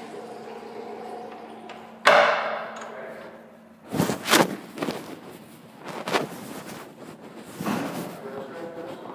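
A sudden loud bang about two seconds in that rings off over a second or so, followed by several short knocks and thumps, over a steady low hum.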